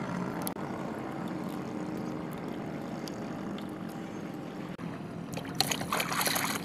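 Sea water splashing as a hand is plunged into it beside a small canoe, starting about five seconds in. Before that there is a steady low hum with a few faint ticks of handling.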